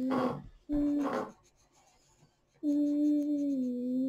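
A child humming: a short held note near the start, then after a pause of about a second a longer steady note that steps down slightly in pitch, with breathy exhales between the notes.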